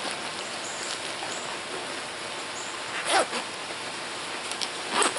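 Steady hiss of rain falling outside, with two short, sharp sounds standing out from it, about three seconds in and just before the end.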